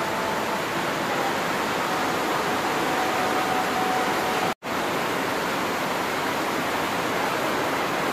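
A steady, even hiss with faint thin whistling tones in its first half, cut off completely for a split second about halfway through.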